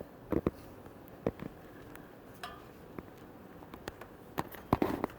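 Footsteps and scattered knocks of someone climbing up stairs, irregular and a few a second at most, loudest near the end.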